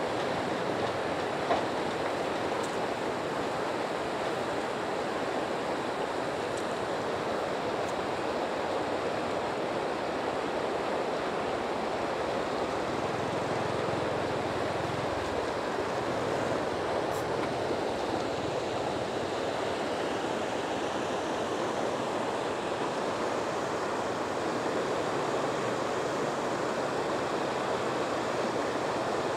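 Steady rush of flowing floodwater, an even noise that holds at one level throughout, with a low rumble swelling in for a few seconds near the middle.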